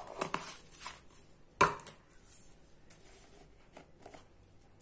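Plastic bead jars being handled: a screw lid closed onto a jar with light clicks and taps, and one sharp knock about one and a half seconds in.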